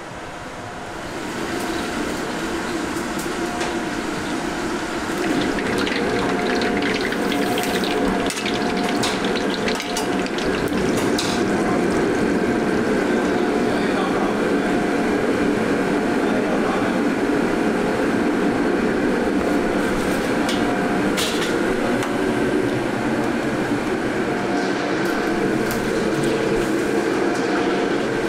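Pastries deep-frying in a wok of hot oil: a steady bubbling sizzle over a low kitchen roar, with a few sharp clicks and taps of metal utensils.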